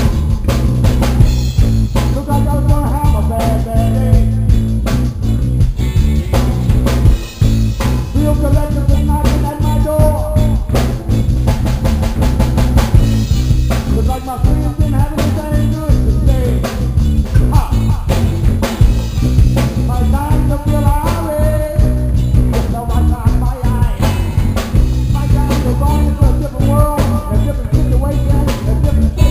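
Live reggae band playing loud, with a heavy electric bass line under a drum kit beat and a melodic guitar line.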